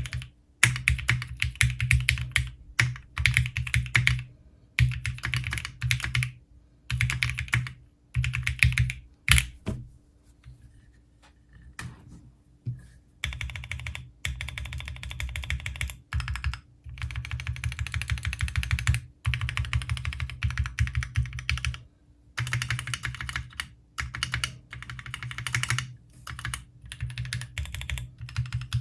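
Typing on a CannonKeys Bakeneko 60 custom mechanical keyboard with Gateron Milky Yellow linear switches and ASA-profile PBT keycaps. The keys clack in quick runs with short pauses, and there is a quieter lull about ten seconds in.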